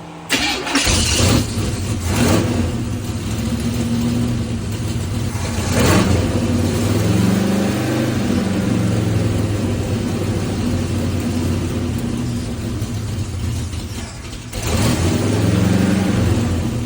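1977 Corvette C3's small-block V8 running, its pitch rising and falling a few times as the throttle is blipped, with a short dip about three-quarters of the way through. The engine has had a vacuum leak traced to a cracked intake manifold, and the owner suspects its timing is still off.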